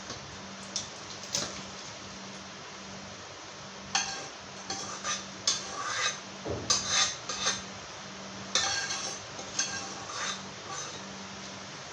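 Irregular clattering and scraping of a utensil against a cooking pot, starting about four seconds in and going on for about seven seconds, as meat and fish are tipped into the soup and stirred. A faint steady hum sits underneath.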